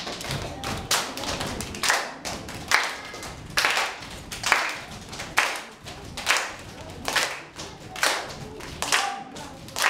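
A group of children doing step-dance body percussion: claps and stomps struck together in unison at a steady beat, about one hit a second.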